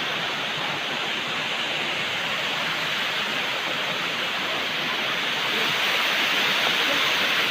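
Waterfall, a steady rushing of falling water, getting slightly louder about two thirds of the way in.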